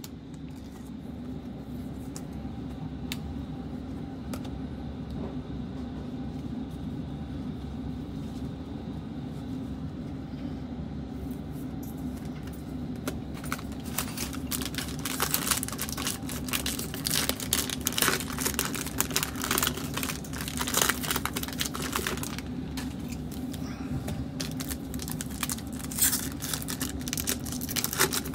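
Foil Panini Prizm basketball card packs being handled and torn open, with dense crinkling and crackling from about halfway through, over a steady low hum.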